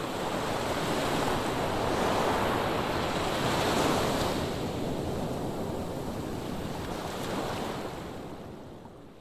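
Audience applauding at the end of a dance, a dense clapping that swells in and then fades out near the end.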